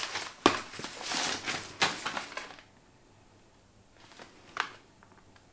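Paper packaging rustling and crinkling as a present is unwrapped by hand, with a sharp snap about half a second in. Then quieter, scattered handling sounds.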